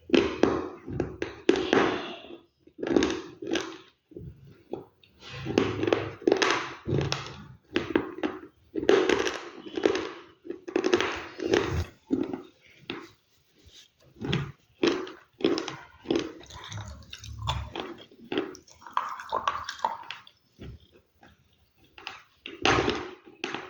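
Close-miked chewing of crunchy food: a run of irregular crunching bites and chews, several a second, with short pauses between mouthfuls.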